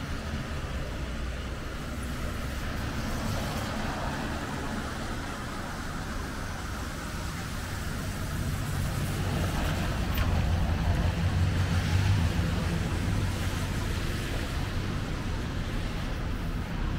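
Street traffic on wet pavement: cars passing with a steady hiss of tyres on the wet road, and a vehicle engine's low hum that grows louder about ten seconds in.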